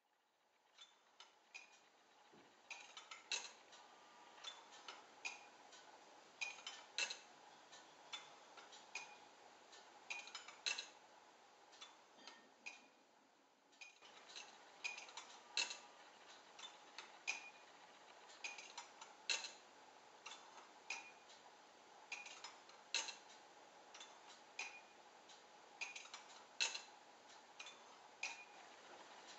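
Ceramic and brass grasshopper escapement ticking: sharp clicks with a slight ring as the pallets catch the clay escape wheel teeth, a louder click about every two seconds with lighter ticks in between.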